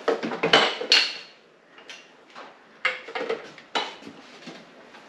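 Metal clanks and knocks as a KTM 200 two-stroke engine is worked into the motorcycle's steel frame, its cases bumping against the frame. A quick cluster of clanks comes first, then two more knocks about three and four seconds in.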